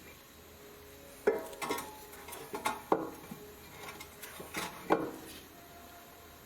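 A run of sharp metal clinks and knocks with short ringing, about nine in all in three loose clusters: tools or brake parts being handled and set down.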